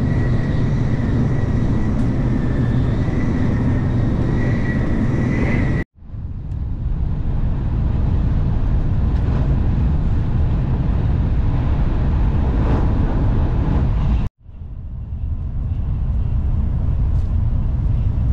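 Shinkansen bullet train running at high speed, around 280 km/h, heard from inside the car: a steady loud rumble of wheels and air. It cuts out abruptly twice and fades back in each time.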